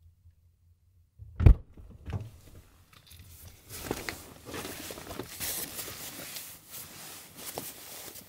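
A single sharp thump, then footsteps rustling and crackling through dry, overgrown grass and brush.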